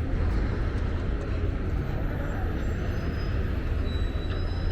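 Steady rush of water flowing over a full dam, an even noise with a heavy low rumble.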